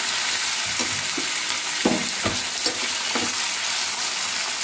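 Chopped onion, tomato and curry leaves sizzling steadily in hot oil in a nonstick kadai, with several stirring scrapes against the pan in the second half.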